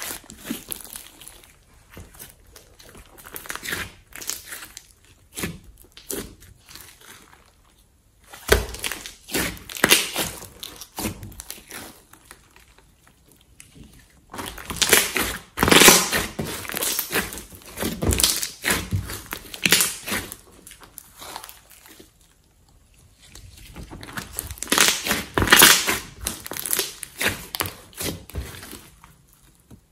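Hands squishing, stretching and pressing a large glossy slime mixed with clay, giving wet clusters of quick clicks and pops from the sticky mass and trapped air. The sound comes in three louder spells with quieter handling between.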